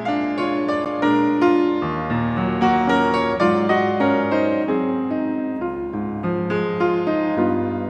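Background music led by piano, a melody of notes struck one after another at an even loudness.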